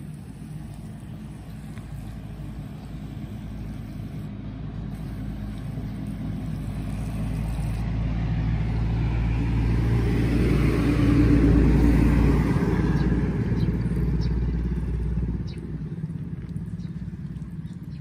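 A motor vehicle's engine passing by: its hum swells slowly, peaks about two-thirds of the way through, then fades out fairly quickly.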